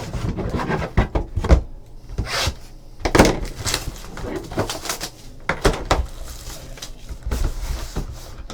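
Trading-card box and packs being handled and opened on a tabletop: irregular rustling, scraping and tapping of cardboard and wrappers, with a few sharper knocks about one and a half and three seconds in.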